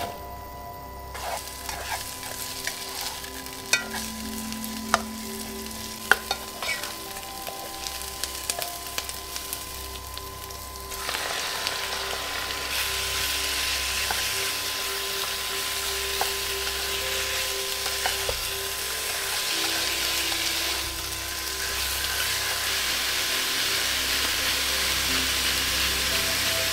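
Sliced onion sizzling in hot oil in a nonstick pot, with sharp clicks of a spatula stirring it. About eleven seconds in, the frying gets louder and steadier as pieces of turkey fillet sizzle and are stirred in the pot.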